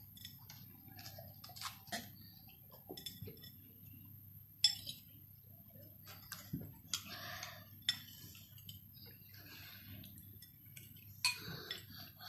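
Metal spoons clinking and scraping against ceramic bowls as several people eat, in scattered sharp clinks at irregular intervals; the loudest comes a little before halfway.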